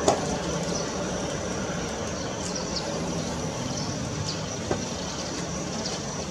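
Airbus A321-200 jet engines running steadily at taxi power, a continuous rumble with a thin, high whine, as the airliner rolls along the taxiway. A sharp click comes just as it begins.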